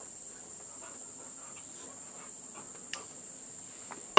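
Steady high-pitched chirring of insects, with a single sharp click about three seconds in and a louder short knock right at the end.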